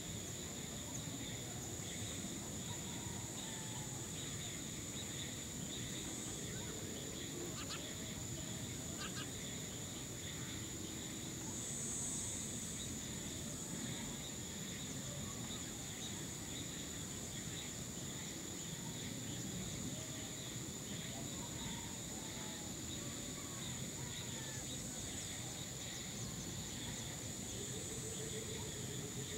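Steady high-pitched insect chorus, with a second weaker tone below it, over a low background rumble, with a few faint short chirps now and then.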